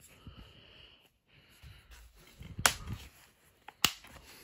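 Plastic DVD case being handled as a disc is pressed back onto its centre hub and the case is closed: soft rubbing and fumbling, then two sharp plastic clicks a little over a second apart in the second half.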